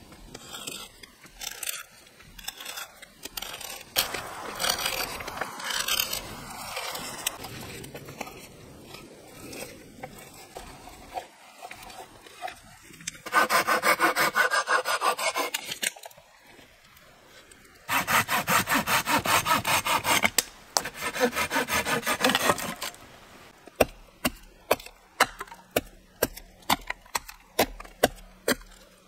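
A hand saw cutting through wooden sticks in two loud runs of quick, rapid strokes. Near the end come scattered sharp knocks of wood.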